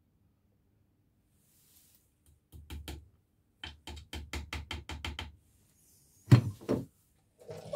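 Metal tool tapping on the end of a Triumph T140 crankshaft: a quick, even run of light metallic taps, about six a second, then two louder knocks.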